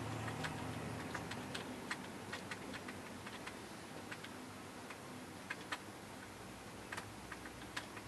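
Dry-erase marker writing on a whiteboard: faint, irregular taps and ticks of the tip against the board as characters are written. A low room hum lies underneath.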